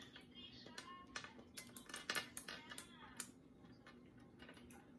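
Light clicks and taps of small plastic chess pieces on a travel chess board, mostly in the first three seconds, with a soft child's giggle near the start.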